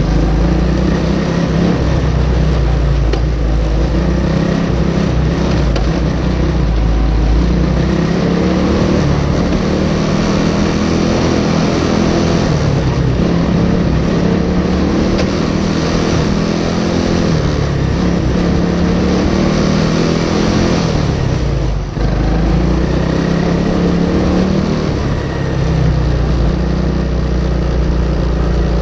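Racing kart's single-cylinder four-stroke Briggs & Stratton Animal engine running hard at race pace, heard onboard. Its pitch rises and falls repeatedly as the driver lifts and gets back on the throttle through the corners, with a sudden brief drop about three-quarters of the way through.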